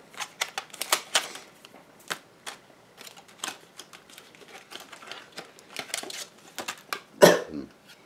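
Irregular light clicks and taps of hands handling small hard items, with one louder, short sound about seven seconds in.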